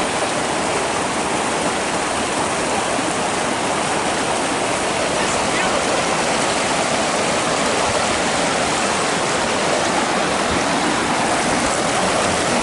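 Shallow, clear mountain creek flowing fast over and around rocks, a steady rush and splash of water.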